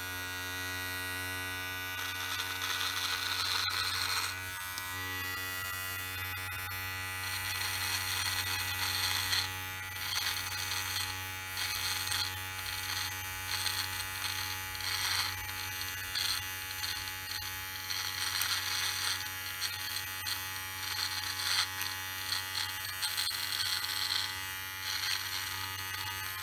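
MANSCAPED Lawn Mower 3.0 cordless body trimmer buzzing steadily as it is run through beard stubble, with an uneven crackling as the blade cuts the hairs.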